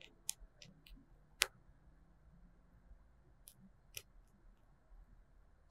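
Computer mouse clicking: about six short, sharp clicks at uneven intervals, the loudest about one and a half seconds in.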